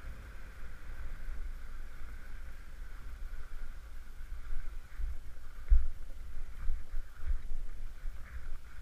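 Wind buffeting the microphone of a helmet-mounted camera in low gusty rumbles, stronger a few times past the middle, over the steady swish of skis running on packed snow.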